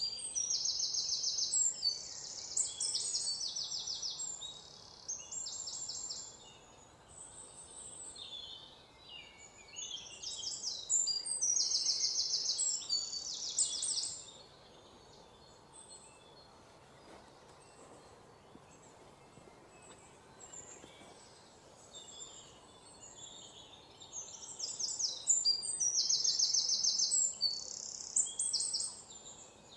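Bird song: high, rapidly pulsing trills repeated in three bouts, near the start, about ten seconds in, and near the end, over faint steady outdoor background noise.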